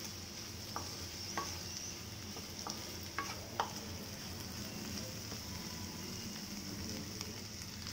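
Capsicum and tomato curry sizzling gently in a kadai while a wooden spatula stirs it, with a few light taps and scrapes of the spatula on the pan in the first few seconds.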